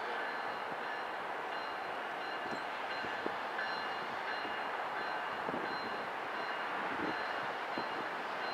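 Knoxville Locomotive Works SE15B diesel switcher locomotive idling steadily, with a faint high whine over its running noise and a few light clicks.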